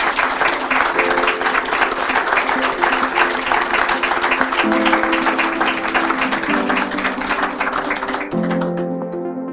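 Audience applauding over closing music, sustained chords that change every second or two. The applause fades out near the end, leaving the music.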